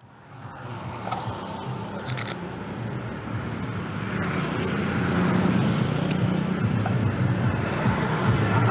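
Motorcycle engine running steadily with a low hum, fading in at the start and growing a little louder about halfway through, with a brief hiss about two seconds in.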